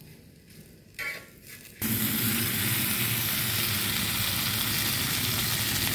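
Idlis frying in butter on a hot tawa, sizzling steadily. The sizzle starts abruptly just under two seconds in, after a quieter stretch with one short clink.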